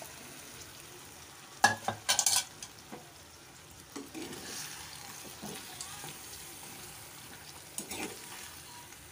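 Sliced taro root (arvi) tipped into a steel pot of masala frying in oil and stirred in, with a low sizzle throughout and sharp clatters against the pot, loudest about two seconds in.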